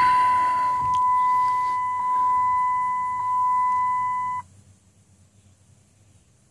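Instrument cluster chime of a 2008 Dodge Ram with the key on and the 6.7 Cummins not yet running: one steady high beep with a faint tick about every second, cutting off suddenly a little over four seconds in.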